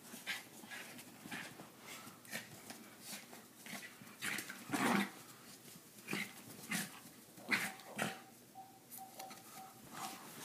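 Small dog growling in short, irregular bursts while tugging and shaking a towel in play, loudest about five seconds in.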